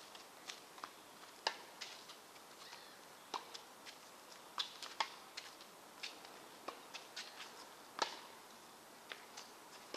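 Tennis rally at a distance: sharp pops of racket strings striking the ball and the ball bouncing on the court, with lighter scuffs and clicks of footsteps between. The loudest hit comes about eight seconds in.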